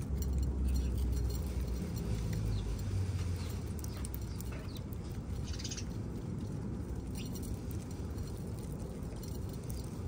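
Small birds feeding at a backyard feeder: scattered faint chirps and pecks over a low rumble that is strongest in the first few seconds.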